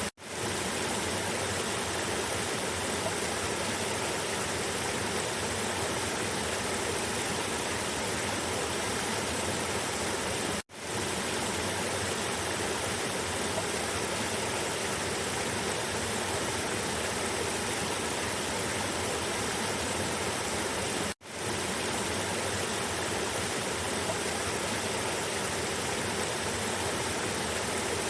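River water rushing steadily down a cascade, an even rushing noise with no change in level. It drops out for an instant three times, about every ten and a half seconds.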